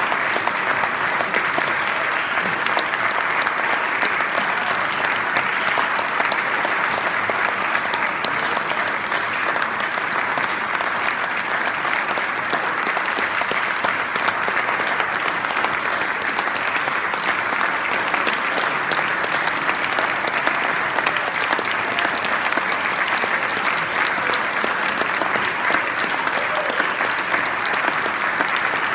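Audience applauding steadily: dense clapping at an even level.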